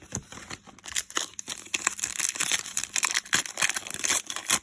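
Trading-card pack wrapper being crinkled and torn open, a dense run of crackles and snaps that grows louder after about a second.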